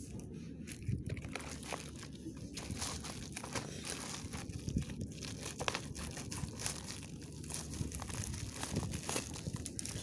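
Plastic mailer bag crinkling and rustling as it is handled and turned over by hand, with irregular crackles throughout.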